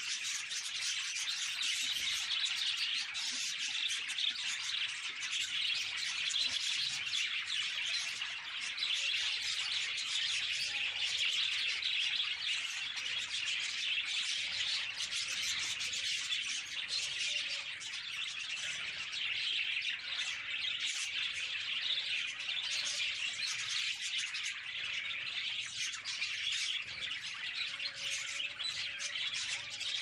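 A flock of budgerigars chattering steadily, a dense high twittering with many small clicks and no breaks.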